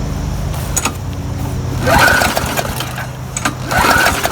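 Murray push mower's pull cord yanked twice, about two seconds apart, the small engine turning over without catching because its fuel is contaminated with water. A steady low engine hum runs underneath.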